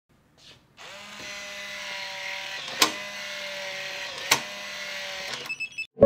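Motor of a MOES smart door lock running with a steady whine, two sharp clicks about a second and a half apart, then a few quick electronic beeps near the end.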